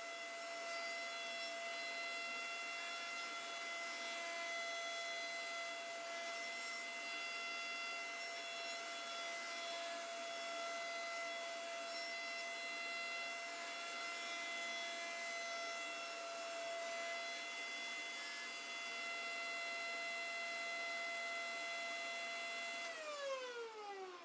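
Router table running steadily with a 1/8 inch roundover bit as a poplar slat is fed along the fence to round its edges. Shortly before the end it is switched off, and its whine falls in pitch as the motor spins down.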